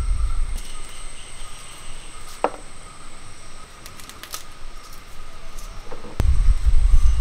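Knife working by hand: a few light clicks and taps as tomato is cut into a clay pot and garlic cloves are peeled, over a steady insect drone. A loud low rumble fades out just under a second in and comes back suddenly about six seconds in.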